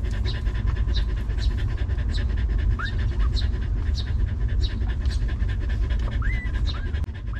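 Newborn puppies nursing against their mother: a few short high squeaks that rise and fall, about three seconds in and again near the end, over a soft sound that repeats about one and a half times a second and a constant low rumble.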